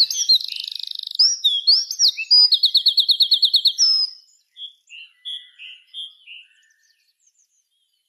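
A wren singing its loud, rapid song of high whistled notes and fast trills, ending with an even trill of about a dozen notes a second that stops about four seconds in. A few fainter, lower notes follow.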